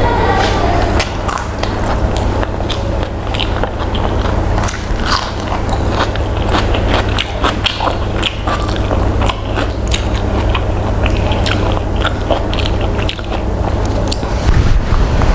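A person biting and chewing food close to the microphone, with many small, irregular crisp crunches and mouth clicks over a steady low hum.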